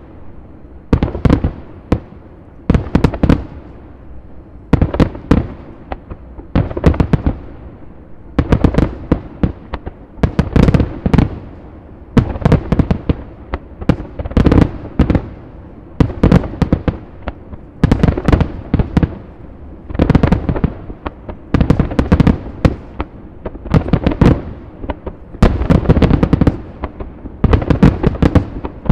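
Aerial fireworks shells bursting in a continuous barrage: clusters of sharp, loud bangs every second or two, each cluster a rapid string of reports.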